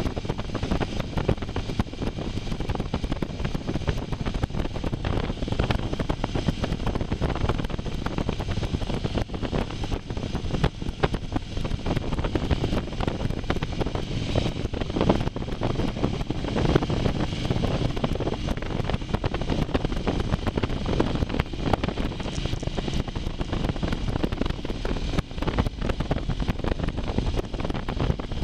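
Wind rushing over the microphone on a moving motorcycle, with engine and road noise underneath, steady throughout.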